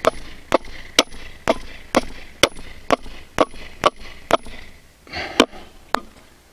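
Hammer driving a steel rebar pin into a drilled hole through a wooden fence post and brace: about a dozen sharp, evenly paced strikes, roughly two a second, each with a brief high ring, stopping near the end.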